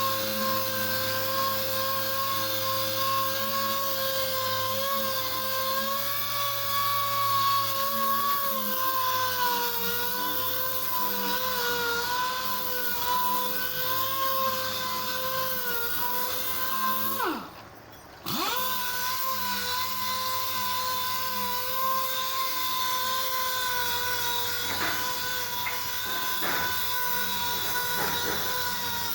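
Handheld power tool running with a steady whine. About 17 seconds in it spins down and stops for about a second, then starts again.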